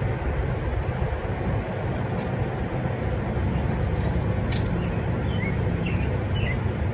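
A steady low engine rumble, like a vehicle running nearby, with a few faint clicks and short high chirps in the second half.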